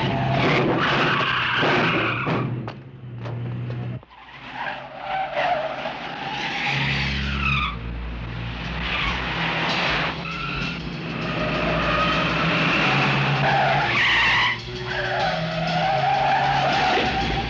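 Car tyres squealing again and again as cars skid hard through turns, with engines running hard beneath. The sound drops briefly about four seconds in.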